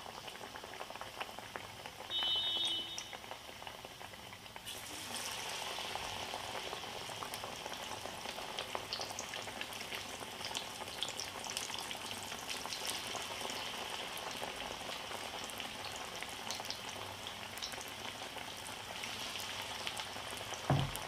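Besan-battered potato pakoras deep-frying in hot oil, a steady sizzling and bubbling that turns louder and more crackly about five seconds in. A short knock comes near the end.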